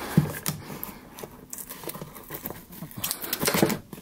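Irregular small clicks, taps and rustling as hands work a Zippo lighter open to fill it, with a louder flurry of clicks near the end.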